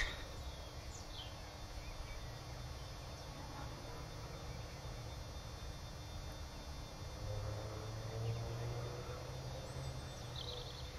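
Open-air birdsong: a few short, high bird chirps at the start and again near the end, over a low rumble. A faint steady drone joins in the second half.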